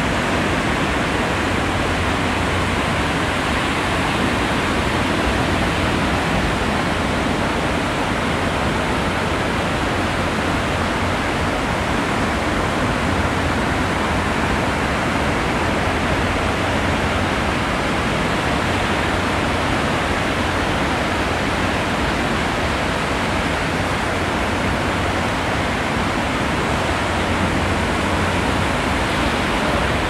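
Ocean surf heard as a steady, even rushing wash, with no single wave crash standing out.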